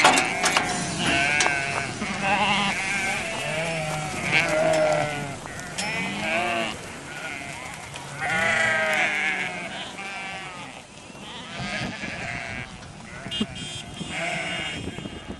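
A flock of sheep bleating: many overlapping calls with a wavering, quavering pitch, one after another.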